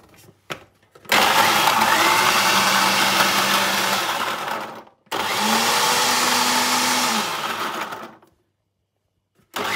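Electric blender grinding peeled almonds with a little milk, run in two spells of about three and a half and three seconds with a short pause between, then a brief third burst near the end. A few light clicks come first as the jar is handled.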